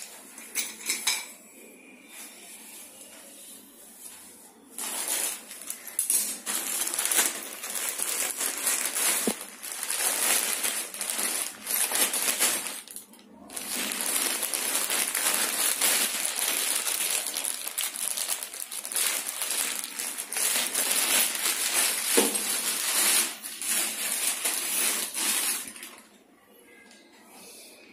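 Clear plastic packaging bags crinkling and rustling as they are handled, in long crackly stretches with a short break in the middle. A few sharp clicks come at the start.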